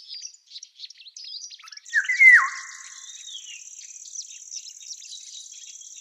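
Birdsong: scattered small chirps, then one loud whistled phrase that drops in pitch about two seconds in, over a steady high insect trill that starts at about the same moment.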